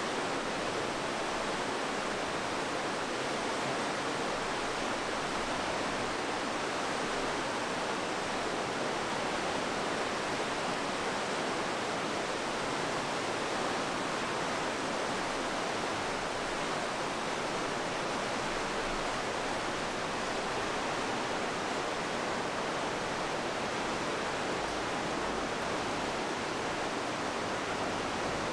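Mountain river rushing through a narrow rock gorge: a steady, even wash of water noise with no breaks.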